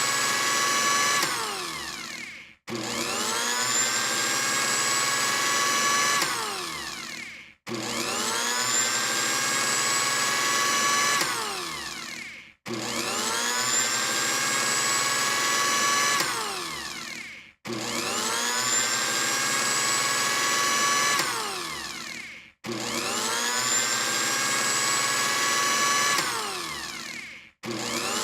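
Electric blender motor run in repeated pulses, one about every five seconds. Each time it whines up to speed, runs steadily for about three seconds, then winds down to a stop with a brief silence before the next.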